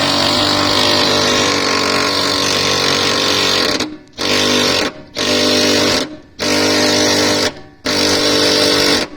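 A power tool buzzing as it drives bolts: one long run of about four seconds, then short bursts about once a second with brief pauses between them.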